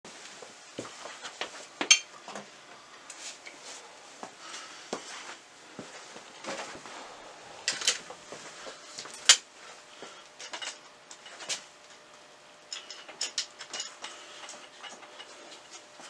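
Irregular metallic clicks, clinks and knocks from a Motobecane mountain bike being handled and set into a repair stand, with two sharper knocks about two seconds and nine seconds in.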